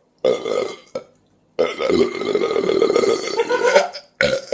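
A person burping: a short burp, then a long drawn-out belch lasting a couple of seconds, with another burp starting near the end.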